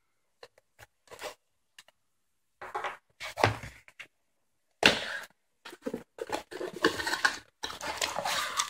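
Cardboard shipping box being handled on a wooden tabletop: scattered knocks and scrapes as it is turned over, with two louder thunks about three and a half and five seconds in, then a run of cardboard scraping and rustling as it is pulled open.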